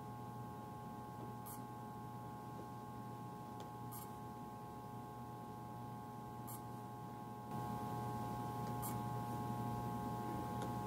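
A quiet, steady drone of several held tones with a low hum beneath, and faint soft clicks about every two and a half seconds; it grows a little louder about three quarters of the way through.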